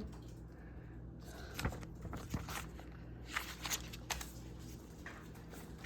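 Hands handling a plastic laptop case and stickers: scattered light clicks and rustles over a faint steady hum.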